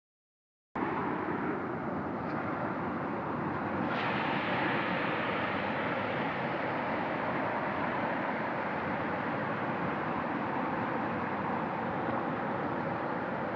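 Steady rush of fast-flowing river rapids, starting just under a second in, with two faint clicks about two and four seconds in.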